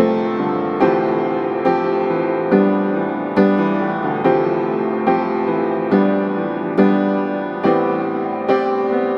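Background piano music: sustained chords struck at an even, unhurried pace.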